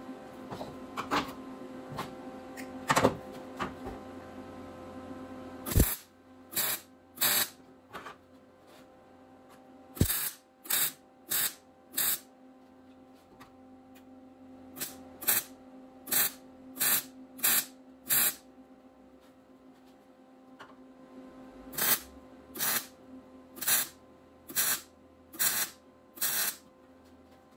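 MIG wire welder laying short bursts of weld, about two dozen pulses in three runs with short pauses between, stitch-welding a steel patch panel into a rusted frame rail. A steady hum runs underneath, with a few clicks and knocks before the welding starts about six seconds in.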